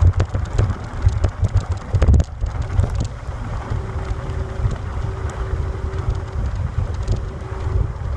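Wind buffeting the microphone during a ride, a gusty low rumble with scattered clicks and rattles. A faint steady hum comes in about four seconds in.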